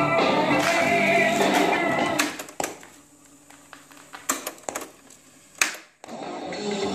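Music with singing playing from a YOKO boombox's cassette deck, cut off about two seconds in. Several sharp clicks of the deck's piano-key transport buttons follow in a quiet gap, and the music starts again near the end.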